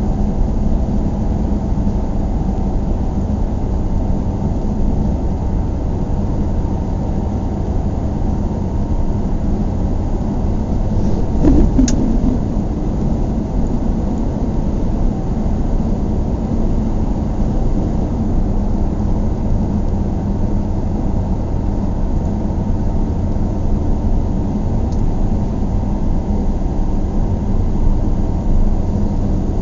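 A car driving, with a steady low engine and road rumble. There is a brief louder swell with a click about twelve seconds in.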